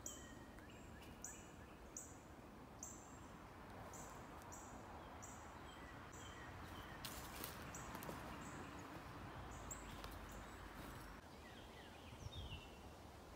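Faint outdoor ambience: a bird repeating a short, high chirp about once a second through the first half, over a low, steady rush of noise that swells a little in the middle. A few lower chirps come near the end.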